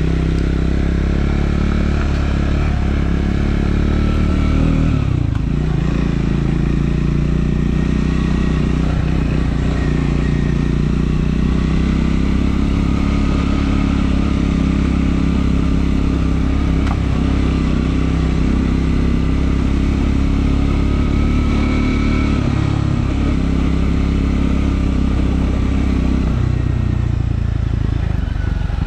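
Triumph Scrambler 400 X's single-cylinder engine running under way, its pitch dipping and changing a few times with throttle and gear changes.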